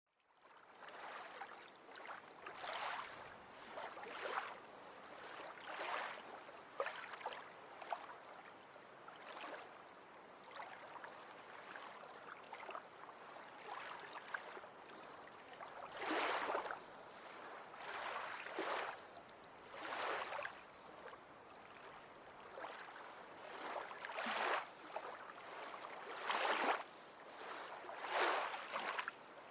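Water washing and lapping, a steady hiss that swells into louder surges every second or two, like small waves or sloshing water.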